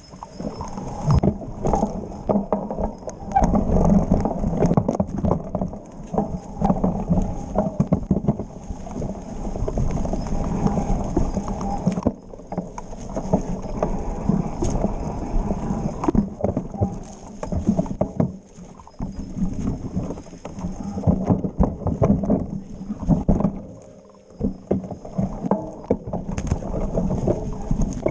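Mountain bike descending a rough forest singletrack: chain, frame and tyres rattling and clattering over roots and rocks in dense, irregular knocks. The clatter eases briefly about twelve seconds in and again near twenty-four seconds.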